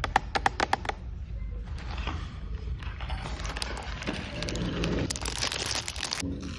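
Packaging being handled and opened during an unboxing: a quick run of sharp clicks in the first second, then steady rustling and crinkling.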